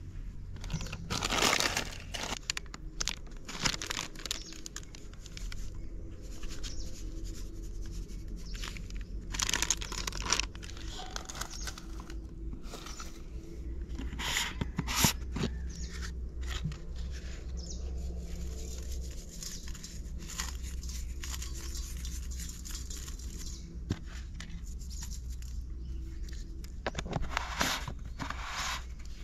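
Scattered rustling, crinkling and light knocks from spice packets, a plastic jar and a steel plate being handled while raw chicken is seasoned, over a steady low hum.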